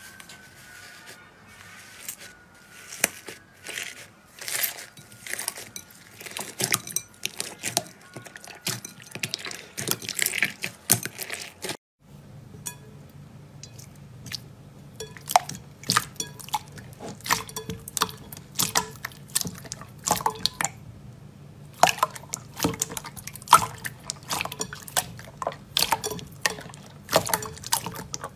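Hands stretching and squishing slime, making a dense, irregular run of sticky pops and wet clicks. About twelve seconds in, after a brief break, a glossy clear slime is pressed and kneaded with the fist, giving wet squelching pops over a faint low hum.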